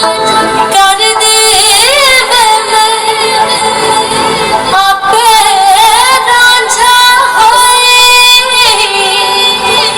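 Loud song with a high female vocal singing a wavering, ornamented melody over steady accompaniment, played through a large DJ sound system; the bass is thin and the sound is harsh and bright.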